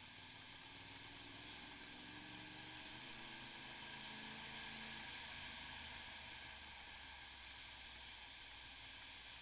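Motorcycle engine running faint and low at slow riding speed, its pitch rising a little and then settling about four to five seconds in, under a steady hiss.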